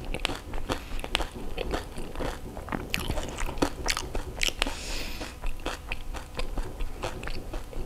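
A whole pani puri being chewed: its crisp fried shell, filled with mashed potato, crunches between the teeth in many short, irregular crunches along with wet chewing.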